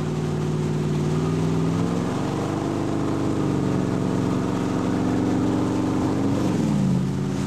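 Motorboat engine running under way towing a banana boat. It revs up about two seconds in, holds steady, then eases off near the end, with water and wind noise underneath.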